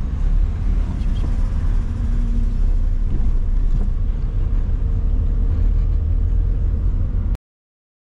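Steady low rumble of a car driving along a road, engine and tyre noise heard from inside the car. It cuts off suddenly near the end.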